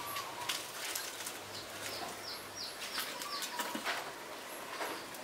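Small birds chirping, with a quick run of four short falling chirps a little after two seconds, over scattered soft clicks and knocks.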